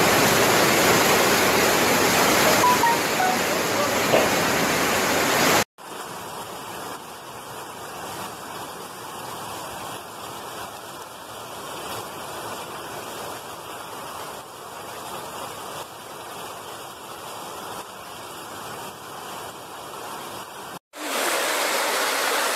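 Muddy floodwater rushing in a fast torrent, a loud steady rush of water. It cuts off suddenly about six seconds in to a much quieter steady rush of water, and a louder rush returns after another sudden cut near the end.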